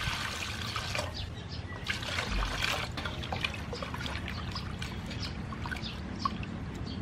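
Water poured from a jug into a large aluminium bowl of raw octopus, then, from about three seconds in, hands swishing and squeezing the octopus in the water, with irregular small splashes as it is washed.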